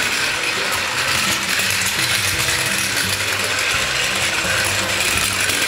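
Battery-powered Plarail E7 series Shinkansen toy train running on plastic track, its small motor and gearbox whirring with a steady clattering rattle ("gasshan gasshan"), which the owner puts down to track pieces not snapped fully together.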